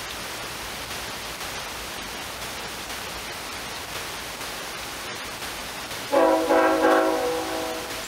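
Steady hiss, with a loud chord of several steady tones starting suddenly about six seconds in, pulsing a few times and then fading.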